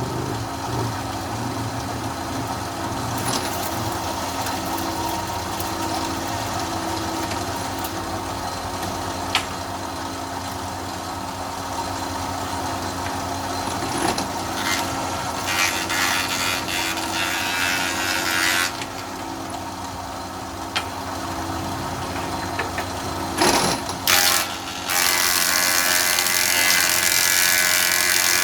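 Single-phase electric wood planer running with a steady motor hum, with boards fed through: the planing noise gets louder roughly halfway in for about four seconds, and again over the last five seconds, with a few sharp clicks between.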